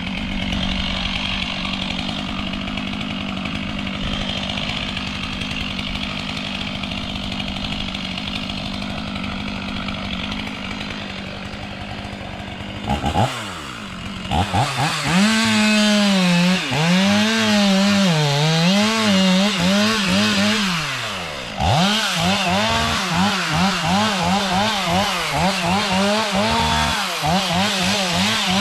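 Chainsaw running at a steady pitch, then from about halfway revving up and down rapidly and repeatedly, with a brief drop about three quarters of the way in.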